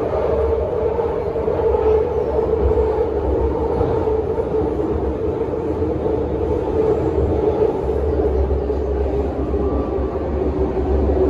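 Inside a BART Legacy A2 car running at speed: a steady rumble of the train on the track, with a mid-pitched tone that drifts slowly lower.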